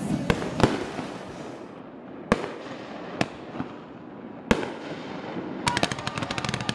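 Fireworks going off: five separate sharp shell reports at uneven gaps, then near the end a rapid string of crackling pops begins.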